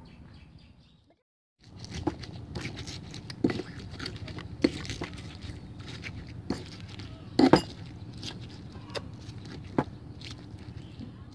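Stone pestle pounding and grinding whole bilimbi fruits, shallots and chilies in a stone mortar: irregular sharp knocks of stone on stone over a steady wet crushing rustle, starting about a second and a half in after a brief gap, with the loudest knock just past the middle.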